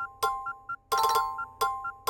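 iPhone iOS 17 ringtone playing: a bright, bell-like electronic chime pattern that repeats. A struck chord comes about every 0.7 s, with short high pings between the chords.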